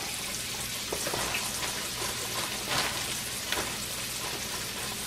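Flour- and breadcrumb-coated chicken of the woods mushroom pieces frying in hot oil in a skillet: a steady sizzle with a few louder crackles and pops.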